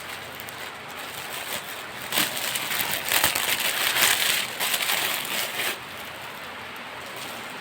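Packaging crinkling and rustling as a jacket is handled and unwrapped, loudest from about two seconds in until near six seconds.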